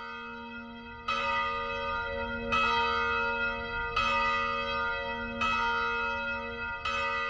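A single church bell tolling, struck five times about every second and a half, each strike ringing on into the next.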